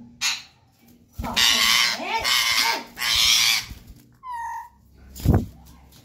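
Rose-ringed parakeets squawking during a fight, one pecking at the other: two long, harsh screeches about a second in and about three seconds in, then a short whistled call, and a dull thump near the end.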